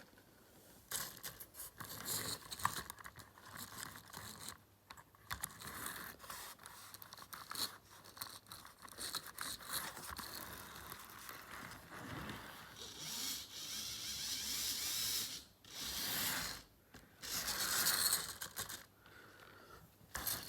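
Model railway locomotive running on the track: an uneven clatter of clicks and scraping from wheels on rail. It grows louder and hissier for a few seconds at a time near the end.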